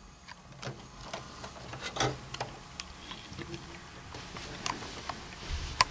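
Handling noise in an open computer case: scattered faint clicks and ticks, with one sharper click just before the end.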